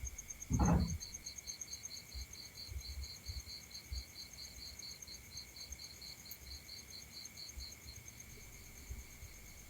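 Crickets chirping in steady rapid pulses, two at different pitches, the lower one joining about half a second in. A brief, louder low noise comes about half a second in.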